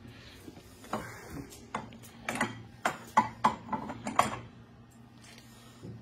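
A run of sharp metallic clinks and knocks, about ten, from hand tools working the steel track tensioner and idler wheel of a mini track loader, bunched between about one and four seconds in.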